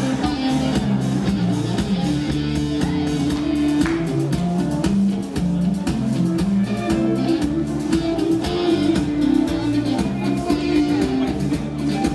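Live contra dance band playing an instrumental tune with guitar and a steady beat.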